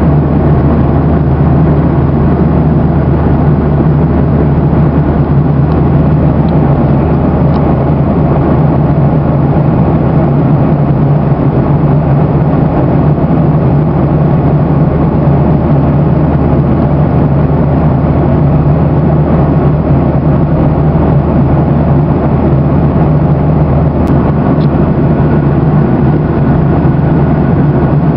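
Steady cabin noise of a Boeing 737-800 in flight, heard from a window seat beside the wing: the low drone of its CFM56-7B turbofan engines mixed with rushing airflow, unchanging throughout.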